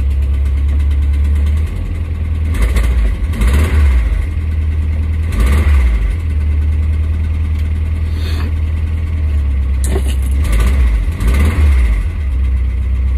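1979 VW T2 campervan's air-cooled flat-four engine idling just after starting first time following months off the road, heard from the cab. The throttle is blipped a few times, raising the revs briefly a few seconds in, again midway, and twice near the end.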